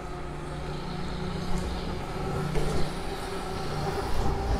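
Lectric XP electric bike under way: the rear hub motor hums steadily with a few constant tones, over wind and tyre rumble, with a few light knocks.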